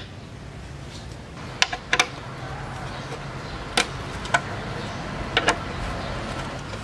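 A handful of sharp, irregular metal clicks from a hex screwdriver working a 5 mm Allen screw out of a motorcycle's plastic front fender, over a steady low background hum.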